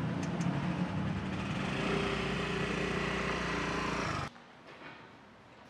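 Motor scooter engine running, then revving up and getting louder from about two seconds in as it pulls away. The engine sound cuts off abruptly a little after four seconds, leaving faint background noise.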